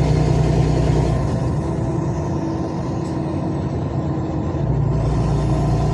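Truck engine running steadily, easing off for about three and a half seconds from a second in, then picking up again.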